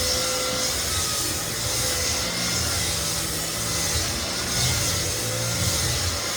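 Lagler Flip belt floor sander running steadily while levelling cupped white oak flooring: a low hum under a broad, even hiss of abrasive on wood.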